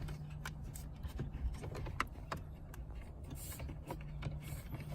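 A few scattered sharp clicks and light plastic rattles of hands disconnecting the cigarette lighter's wiring behind a car's centre console trim, over a steady low hum.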